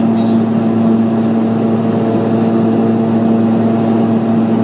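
Passenger aircraft engines droning steadily, heard inside the cabin as a loud, even hum with a strong steady low tone.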